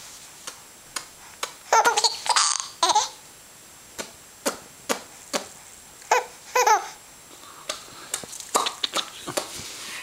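Baby laughing in short bouts, the loudest about two seconds in and again around six seconds, with brief sharp sounds in between.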